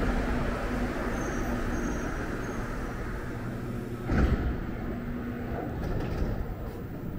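Montreal metro train running through a tunnel on its rubber tyres: a steady rumble with a faint steady hum, and a single knock about four seconds in.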